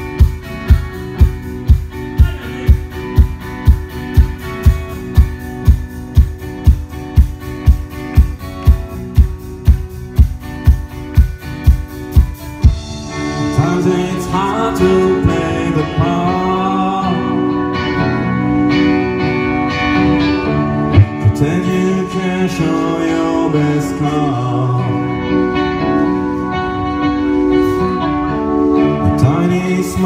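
Live rock band. For about the first twelve seconds there is only a steady beat of about two strong hits a second. Then the full band comes in, with electric guitars, drums and a male lead vocal.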